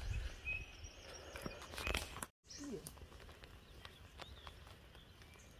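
Quiet woodland ambience: scattered soft rustles and steps in dry leaf litter with a couple of faint bird chirps. The sound cuts out completely for a moment a little over two seconds in.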